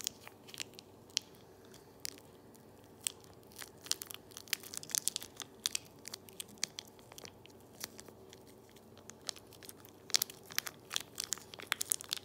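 Plastic chili sauce sachet crinkling and crackling in irregular little clicks as it is squeezed out over the noodles, with a faint steady hum underneath.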